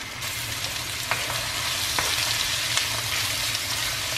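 Chopped peppers hitting a hot, oiled wok of onion and garlic and sizzling, the frying hiss jumping up about a quarter second in and then holding steady, with a few light clicks of a wooden spoon stirring in the wok.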